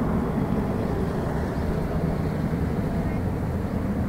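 Boeing 777-300ER's twin GE90-115B turbofan engines at climb thrust just after takeoff: a deep, steady rumble that slowly fades as the airliner climbs away.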